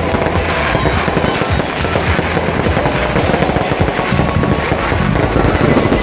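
Fireworks going off in rapid succession: a dense, unbroken crackle of bangs and pops.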